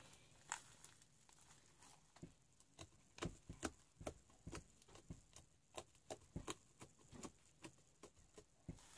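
Faint, irregular little clicks and pops, two or three a second, from fluffy white slime made with shaving foam being kneaded and squeezed by hand in a plastic tub.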